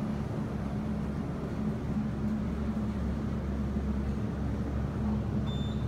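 Steady rumble and hum of a high-speed Otis elevator car travelling down its hoistway, heard from inside the cab.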